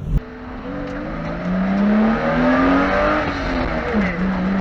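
BMW E30's engine accelerating under throttle. The engine note climbs steadily, drops sharply near the end as it shifts up a gear, then starts climbing again.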